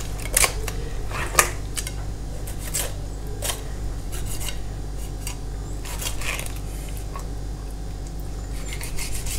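Filleting knife cutting and scraping along the bones of a John Dory as the fillet is lifted away, giving scattered short clicks and scrapes as the blade runs over the ribs and spines.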